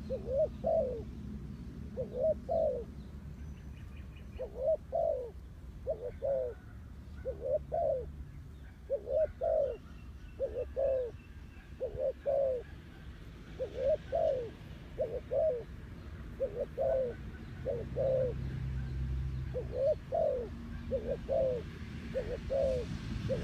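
Spotted dove cooing: short two-part coos repeated at a steady pace, about one every one and a half seconds.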